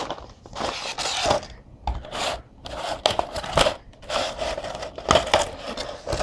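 Plastic packaging and small figure parts being handled: irregular clicks, light knocks and rustling as pieces are taken out of a Nendoroid box.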